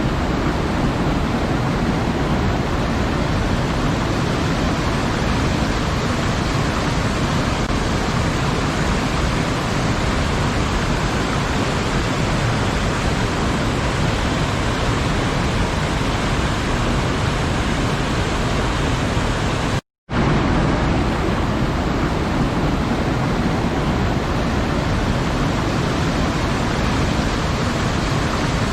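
Waterfall: water falling in a dense, steady rush with no change in level, broken once by a split-second dropout to silence about twenty seconds in.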